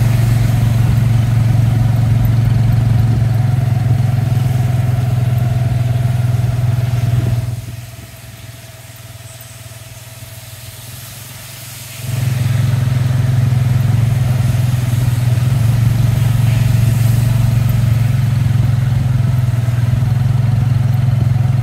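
Motorcycle engine pulling a tuk-tuk, heard from the passenger carriage: a steady low drone that drops much quieter for about four seconds near the middle, then comes back up.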